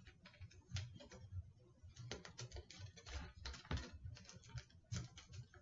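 Masking tape being torn off the roll and pressed down onto cardboard and wire: an irregular run of short crackly rips and light taps.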